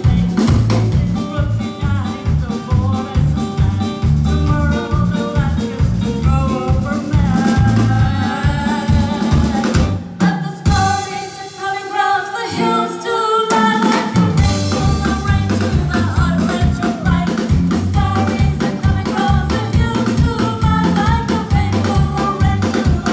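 Live rock band playing with electric guitars, bass guitar and drum kit under two women singing. About ten seconds in, the drums and bass drop out for a few seconds while the melody carries on, then the full band comes back in.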